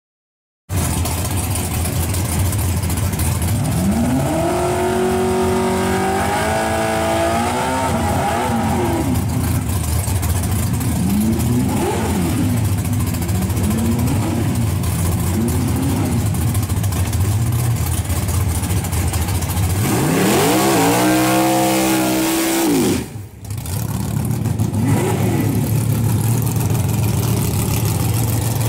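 Drag-racing Chevy LUV pickup's engine idling and being revved hard several times, after a brief silence at the start. A long climbing rev comes a few seconds in, then a few short blips, and another high rev about two-thirds of the way through that cuts off suddenly before it settles back to idle.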